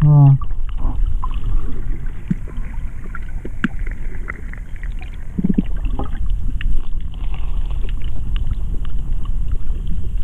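Underwater sound picked up by a GoPro camera: a steady low rumble of water moving around the camera, with scattered faint clicks and crackles. A short muffled voice sounds at the very start.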